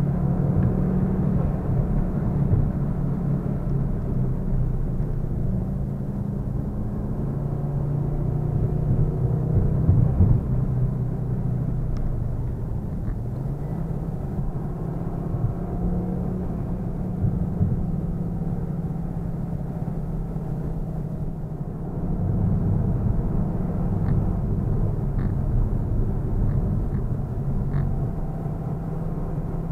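Car engine and road noise from inside the cabin while driving, a steady low hum whose engine note drifts up and down with speed. The sound dips briefly about 22 seconds in, then carries on.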